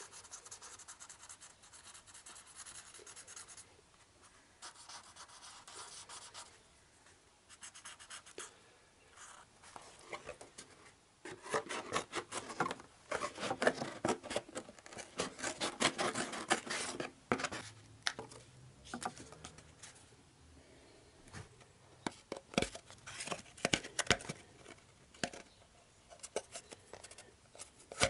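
A marker pen scratching across cardboard as a circle is traced, followed by scissors cutting through the cardboard in a dense run of short snips, loudest from about eleven seconds in.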